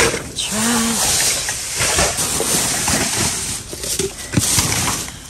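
Clear plastic garbage bags and packaging crinkling and rustling as they are shoved around inside a dumpster. The rustle is continuous, with a few dull knocks among it.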